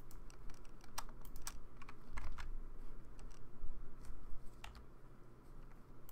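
Irregular clicks of a computer keyboard and mouse being pressed while a spreadsheet is edited, a dozen or so spaced unevenly, over a low steady hum.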